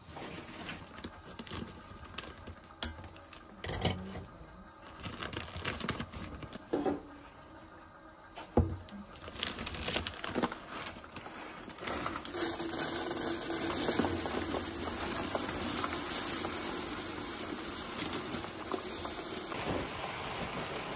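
Uncooked rice poured from a paper-and-plastic rice bag into a rice bin: a steady pattering rush of grains from about twelve seconds in. Before that, scattered clicks, knocks and crinkles as the bag is handled and opened.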